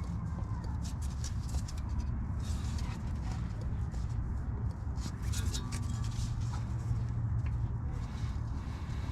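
Scattered light clicks and knocks of hand tools working on an engine, over a steady low hum.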